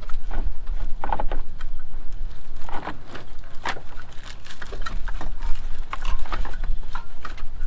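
Irregular clicks, knocks and taps of hands handling and fitting headlight parts on a Jeep, over a steady low rumble.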